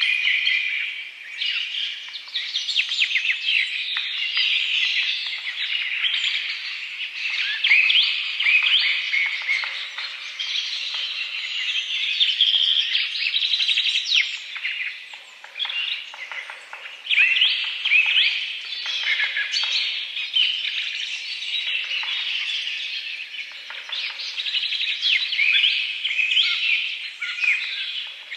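Songbirds chirping and singing, many short overlapping calls and quick pitch glides one after another with no break.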